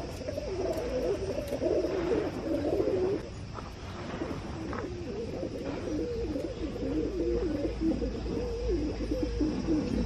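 Pigeons cooing continuously in low, wavering, overlapping calls, with a short lull about three seconds in.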